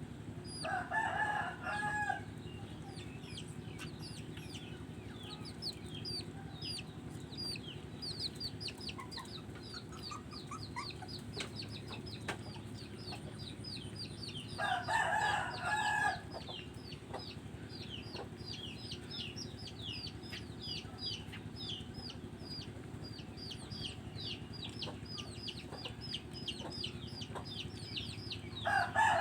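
Chickens: a steady stream of rapid, high peeping chirps, with a rooster crowing three times, each crow about a second long, near the start, midway and at the end.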